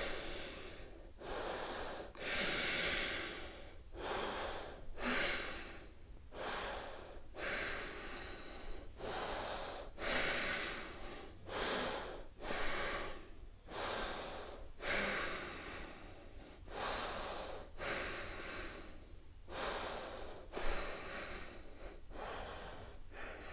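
A woman breathing audibly and rhythmically, about one breath a second, while she holds a twisting high lunge after quick step-ins.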